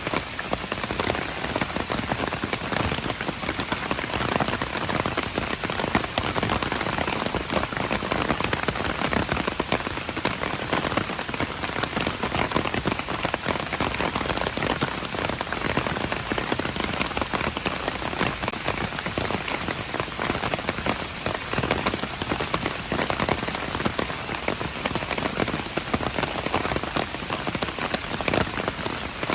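Steady rain falling on hard surfaces, a dense even patter of many small drop impacts without a break.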